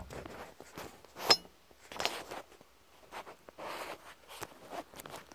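Light, scattered clicks and clinks of a screwdriver and small screws being handled and set down, with one sharper click about a second in.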